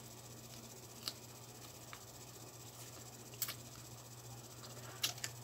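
Mouth sounds of someone chewing a shawarma wrap: a few short sharp clicks, scattered at first and bunched near the end, over a steady low hum.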